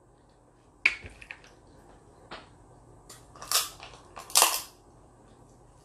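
Snow crab shell cracked by hand with a sharp snap about a second in, followed by a few small clicks of shell. Then come two loud slurps, about a second apart, as the meat is sucked out of the shell.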